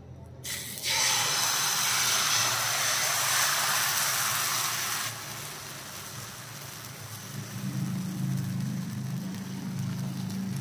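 Rice-flour batter hitting a hot frying pan and sizzling loudly for about four and a half seconds, then dropping suddenly to a fainter hiss. In the second half a low, wavering engine-like drone comes up underneath.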